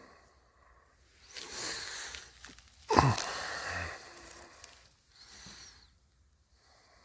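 Breathy huffs and rustling noise, with a short, sharp sound dropping steeply in pitch about three seconds in, the loudest moment; quieter toward the end.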